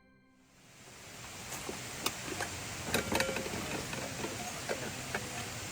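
A steady hiss of background noise fades up over the first second and holds, with scattered light clicks and knocks; the loudest cluster comes about three seconds in.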